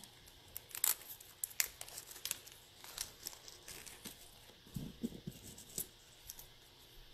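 Faint crinkling and light scattered clicks of hands handling a small clear plastic jewelry bag and a gold chain necklace, with a brief low murmur about five seconds in.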